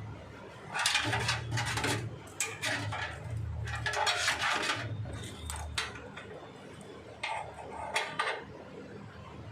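Hard objects being handled: several bursts of clattering and scraping, each a half-second to a second long, over about seven seconds.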